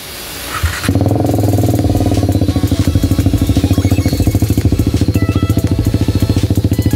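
KTM 390 Adventure's single-cylinder engine idling steadily with no exhaust fitted, firing straight out of the open header pipe with its cat box and silencer removed. Its even, rapid pulsing comes in about a second in.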